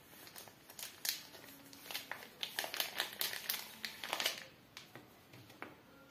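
Clear protective plastic film peeled off a smartphone's screen, crinkling in a run of quick crackles that stops about four and a half seconds in, followed by a few faint ticks.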